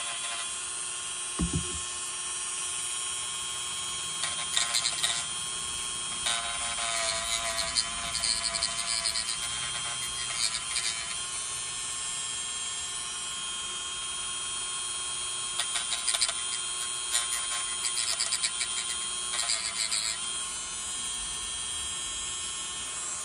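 Dremel rotary tool running with a steady high whine, bogging into several stretches of rough grinding as the bit cuts through an old rubber boot gone hard on an alternator terminal connection.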